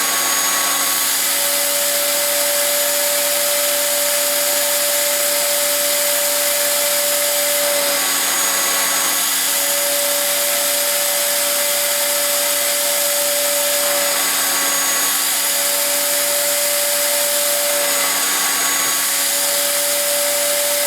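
Shop vacuum running steadily, drawing suction through the hose of a Festool vacuum clamp's suction pad, with a whistling tone that shifts slightly in pitch a few times.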